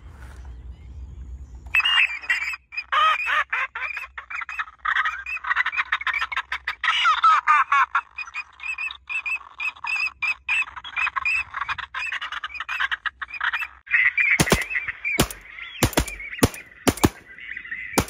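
Recorded duck calls played through a battery-powered electronic caller's speaker, starting about two seconds in as a dense, continuous run of rapid chirping quacks, used to lure ducks to the decoys. Near the end, five sharp bangs come within about three seconds over the calling.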